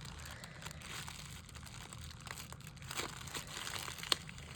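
Paper crinkling as a handmade paper squishy, sealed paper with baking soda inside, is handled, with scattered faint crackles and one sharp click near the end.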